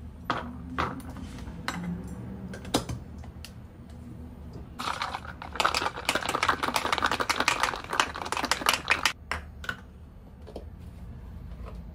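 Ice cubes dropped one at a time into a stainless steel tumbler, a few separate clinks. Then, about five seconds in, some four seconds of fast ice rattling as the closed tumbler is shaken with the espresso, followed by a few light knocks.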